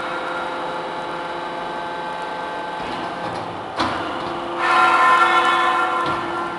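Enerpat double-ram hydraulic metal baler running with a steady whine made of several tones. A sharp knock comes about four seconds in, then the whine grows louder and fuller for about two seconds near the end.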